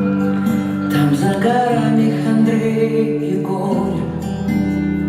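Background music: an instrumental passage of a pop song, with guitar and held notes.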